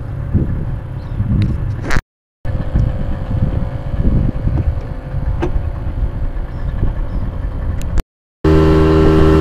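Small fishing boat's outboard motor under way: an uneven low rumble of wind on the microphone over a faint steady engine hum, then, near the end, the outboard running loud and steady at cruising speed.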